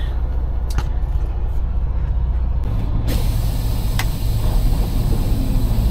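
Semi truck's diesel engine idling with a steady low rumble, with two sharp clicks, about a second in and about four seconds in. About three seconds in a steady high hiss joins in.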